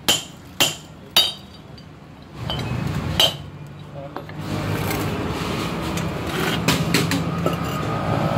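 Sledgehammer blows on a steel drift punch driving the worn, pitted rear wheel bearing out of a Maruti Suzuki Alto 800 brake drum hub: three ringing metal strikes about half a second apart, then one more about three seconds in. After that the hammering stops and a steady background rumble builds, with a couple of light metal clinks.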